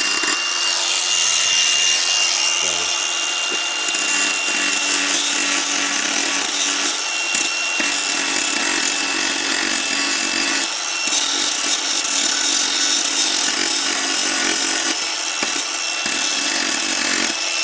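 A power tool with a grinding wheel running steadily against the vehicle's floor metal, grinding a ground point clean down to bare metal: a harsh, even scraping with a thin high whine over it.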